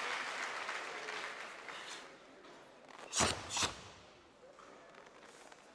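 Crowd applause dying away, then two sharp cracks about half a second apart from the three karateka's techniques performed in unison during a team kata.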